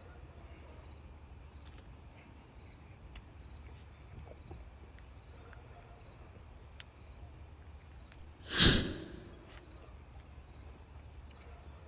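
Steady high-pitched chirring of crickets and other insects. About eight and a half seconds in comes a single loud, short rush of noise lasting about half a second.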